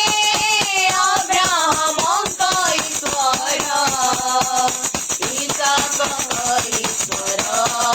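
Worship song: a sung melody over a steady, busy percussion rhythm.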